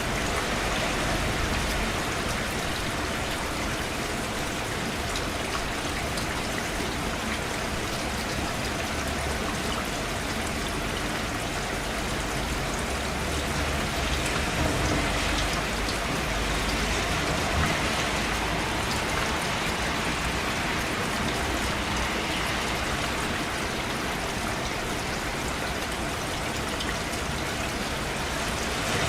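Steady rain falling, an even hiss with scattered individual drops.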